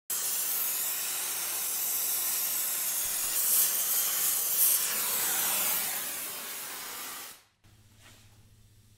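Gas torch flame hissing steadily while it heats a crankshaft, then cutting off suddenly about seven seconds in, leaving a faint low hum.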